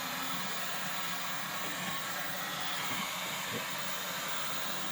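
Heat gun blowing with a steady hiss and a faint low hum, as used to set the glue of vinyl camouflage wrap; a few light knocks are heard under it.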